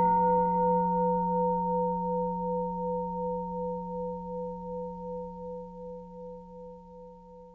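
A Tibetan singing bowl ringing out after a single strike: a low hum with a few higher overtones, one of them wavering in an even pulse, all fading slowly.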